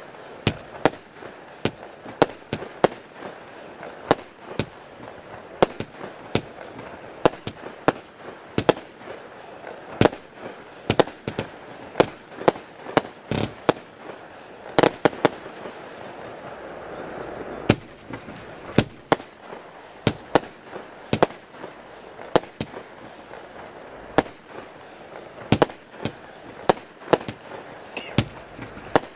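Lesli 'Böse Buben' firework battery (cake) firing shot after shot: sharp bangs come at uneven intervals, often two or three a second, over a steady hiss that swells for a few seconds in the middle.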